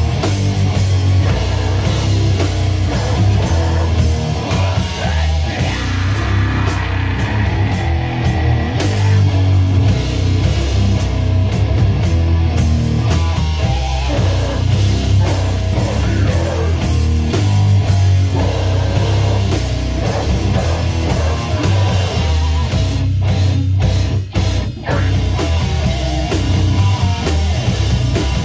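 Death metal band playing live: loud distorted electric guitars over a pounding drum kit. The playing breaks off abruptly for a few short stops near the end.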